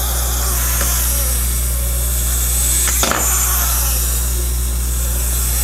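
Clockwork spring motor of a wind-up toy gorilla running with a steady whir, and a single knock about three seconds in.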